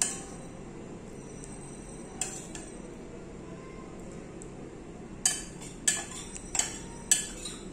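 A metal spoon clinking against a cooking pot, over a steady low background noise. A few light taps come early, then a quick run of about six sharper clinks in the last few seconds.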